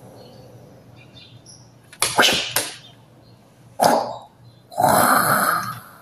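A man's sharp, breathy mock kung-fu cries: three short bursts about two, four and five seconds in, the last one longest.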